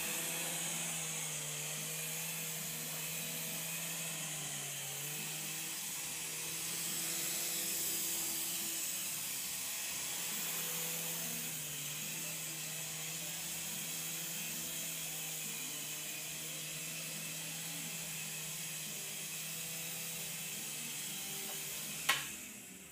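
Small remote-control helicopter's electric motor and rotors whirring steadily in flight, the pitch wavering slightly with the throttle. Near the end there is a sharp knock, and the whirring cuts off.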